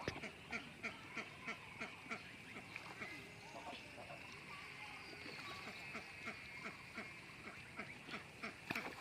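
Ducks quacking in quick, short, repeated calls, several each second, most tightly packed in the first second.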